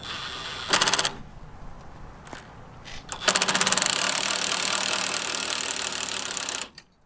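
Cordless drill turning a 3/4-inch socket to tighten the spring bar jack screw of a weight-distribution hitch. It runs in a short burst about a second in, then a longer run from about three seconds in, with a fast rattle throughout, and stops suddenly near the end.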